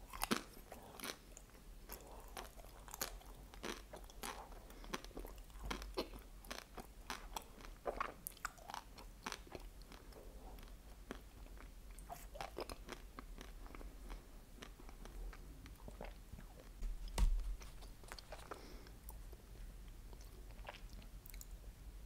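Close-miked chewing of a bite of chocolate-coated ice cream bar, with frequent crisp crackles of the chocolate shell breaking between the teeth. A single louder crunch with a low thud comes about three-quarters of the way through.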